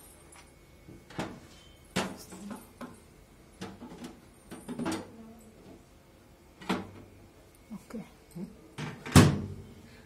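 Metal rotisserie spit and its handle tool of a Morphy Richards convection microwave clinking and knocking as the spit is worked into its mounts inside the oven cavity: a dozen or so light clicks and clunks, irregularly spaced. About nine seconds in comes a single louder thud, the oven door shutting.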